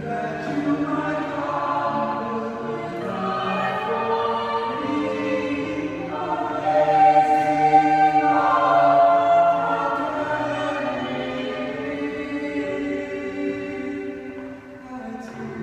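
Small a cappella group singing a hymn in blended five-part harmony, with long reverberation from a large gymnasium. The voices swell to their loudest about halfway through, then ease off, with a short breath near the end before the next phrase.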